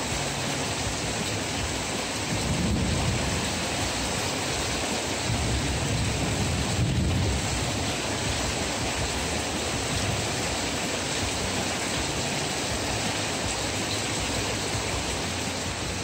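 Heavy rain pouring down, heard from under a covered porch, a steady hiss. Low rumbles swell twice, about three and about six seconds in.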